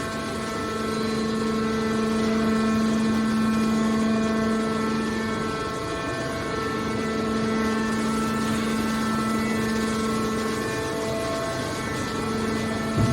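Hydraulic baler machine running: a steady mechanical hum with a held pitched whine that fades briefly about six and eleven seconds in.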